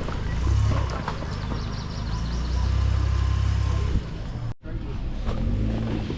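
Off-road vehicle engine running low and steady while crawling over a rocky trail, with scattered clicks and knocks. The sound cuts out completely for a moment about four and a half seconds in, then resumes.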